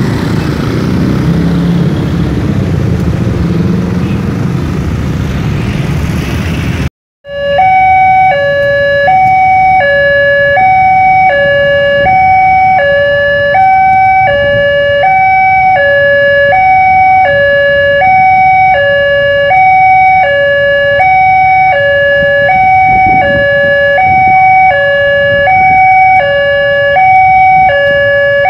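A passenger train rumbling past over the level crossing. About seven seconds in, the sound cuts off abruptly. Then an Indonesian level crossing's electronic warning alarm sounds, a steady two-tone alternation between a low and a higher note.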